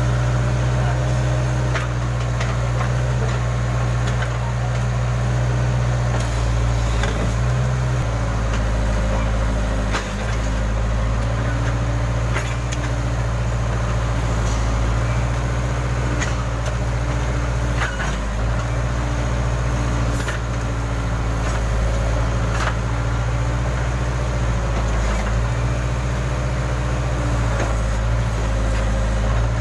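Case backhoe loader's diesel engine running steadily under working load, its note dipping and shifting every several seconds as the hydraulics are worked. There are a few sharp knocks along the way.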